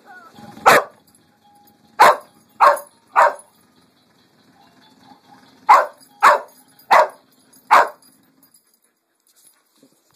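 Australian Shepherd barking loudly in short sharp barks, eight in all. There is a single bark, then a quick run of three, then after a pause a run of four.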